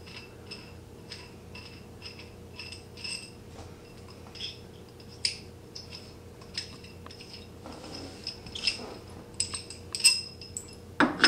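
Light metallic clinks, about two a second, each with the same brief ring: steel bench tubing knocking as the long crossbar is worked into the arc bar. The clinks grow louder and come closer together near the end.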